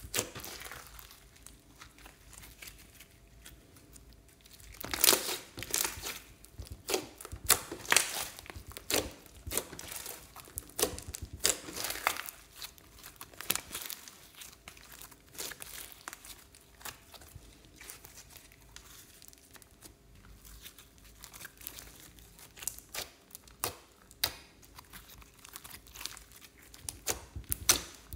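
Hands kneading, pressing and stretching glossy purple slime: irregular wet squishing with sharp crackling and popping, louder in a few short spells.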